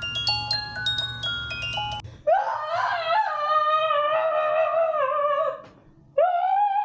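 Background music: a quick tune of short, plinking glockenspiel-like notes that cuts off about two seconds in. It is followed by two long, high held notes whose pitch wavers, the second starting near the end.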